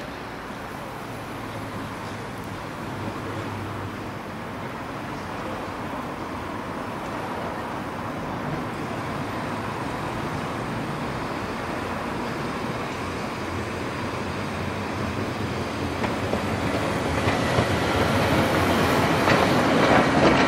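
Heritage tram running along the track, a continuous rail rumble that grows louder over the last few seconds.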